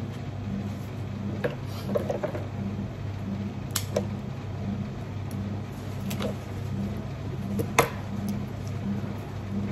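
Steady low machine hum with a regular pulse about twice a second, under a few sharp clicks and knocks, the loudest near the end.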